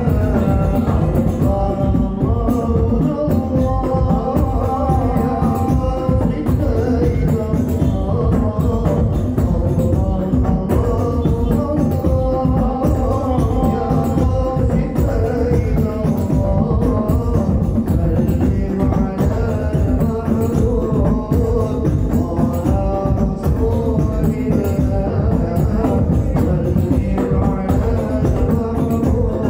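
Hadroh ensemble of hand-struck frame drums (rebana) and large bass drums playing a dense, steady rhythm under a sung sholawat melody.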